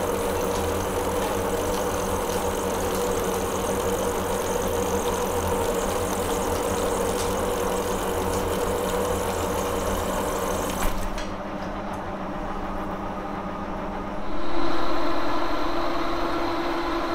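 Monarch engine lathe taking a turning cut in 1018 cold-rolled steel with flood coolant pouring on the cut: a steady machine hum with a hiss of coolant and chips over it. About eleven seconds in the sound changes abruptly to a quieter, duller run of the lathe, and a few seconds later a new steady tone comes in as the level rises.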